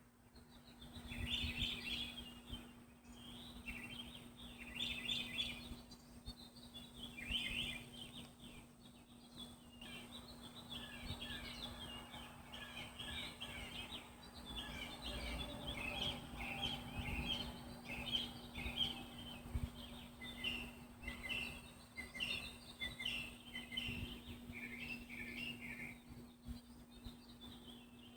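Songbirds chirping at sunrise, several birds calling in quick overlapping chirps that grow busier about a third of the way through, over a faint steady low hum.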